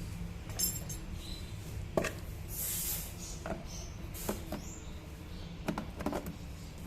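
Scattered light clicks and knocks of plastic parts being handled as a new air filter is fitted and the air box of a Honda PCX 150 scooter is closed up, with a brief hiss about two and a half seconds in.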